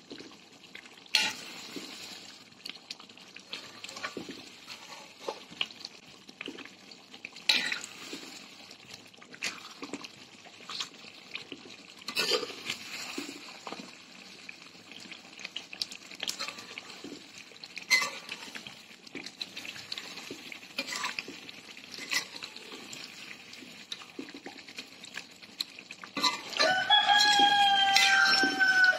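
Metal spoon stirring thick chicken curry in a metal pan: irregular scrapes and clinks against the pan over a steady sizzling bubble. Near the end a loud drawn-out pitched call sounds for about two and a half seconds, dropping slightly in pitch as it ends.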